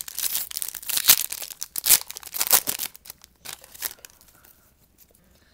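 A foil trading-card pack wrapper being torn open and crinkled, with dense crackling for about three seconds, then a few lighter rustles that stop about four seconds in.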